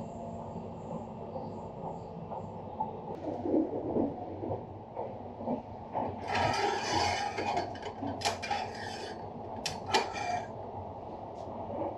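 A hand working a small brass-handled wooden fitting: scraping and rubbing for about three seconds from six seconds in, then a few sharp clicks near ten seconds. The train's low running rumble is underneath.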